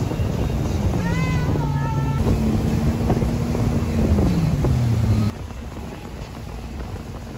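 Boat engine running under rushing water and wind buffeting the microphone, with a short rising-and-falling cry about a second in. The loud sound cuts off abruptly about five seconds in.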